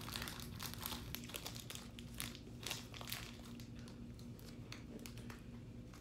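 Plastic snack packet of Lance peanuts crinkling as it is handled: an irregular run of quick crackles throughout.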